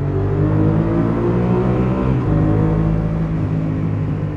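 Suzuki SV650S V-twin motorcycle engine accelerating hard, its pitch climbing, with a short break about two seconds in at a gear change before it pulls again.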